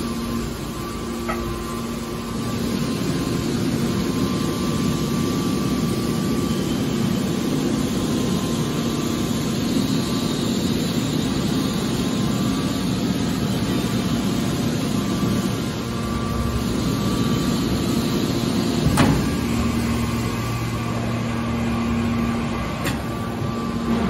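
Scrap-metal baler's hydraulic pump and motor running with a steady hum. A sharp clunk comes about nineteen seconds in, after which a lower hum joins for a few seconds, and a fainter click follows near the end.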